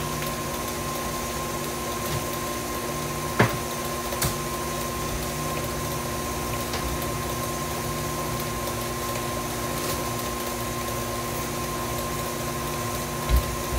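Tilt-head stand mixer running steadily at high speed, beating pound cake batter in its steel bowl: an even motor hum with a couple of light knocks about three and four seconds in.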